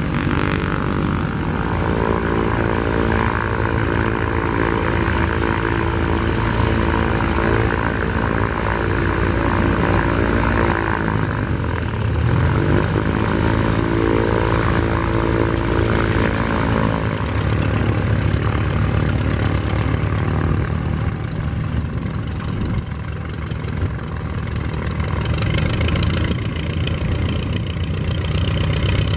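Propeller aircraft piston engines running on the ground. A steady pitched engine drone dips and climbs in pitch about twelve seconds in. It is followed by the engine of a de Havilland Chipmunk trainer taxiing past with its propeller turning.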